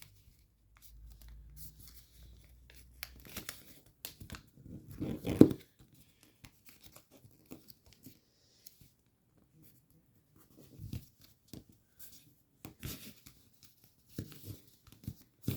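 Origami paper being handled and creased by hand: scattered faint rustles and crinkles, the loudest about five seconds in.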